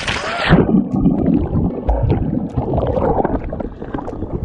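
Seawater heard through a camera dipped underwater: a splash as it goes under, then muffled gurgling, sloshing and rumbling of churning water and bubbles.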